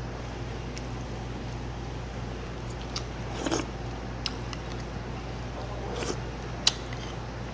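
Mouth sounds of a person eating pork-bone hangover soup with a metal spoon: chewing and short slurps, with a few light clicks of the spoon against the dish, the sharpest near the end. A steady low hum runs underneath.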